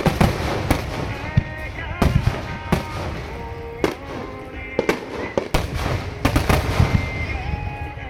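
Aerial firework shells bursting in quick, irregular succession in a display's finale barrage, sharp booms overlapping one another over a continuous low rumble.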